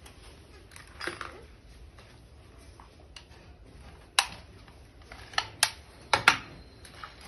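Steel car seat slider rails clacking against each other and against the metal seat swivel plate as they are handled and laid in place: a few sharp metallic clicks, the loudest about four seconds in and a close pair about six seconds in.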